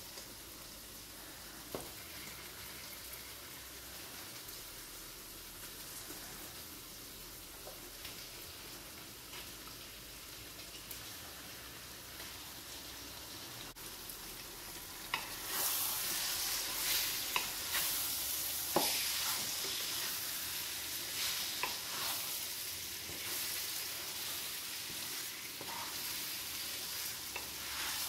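Tomato-and-spice masala sizzling softly in a nonstick pan as raw chicken pieces go in. About halfway through the sizzle grows louder, with the knocks and scrapes of a wooden spoon stirring the chicken through.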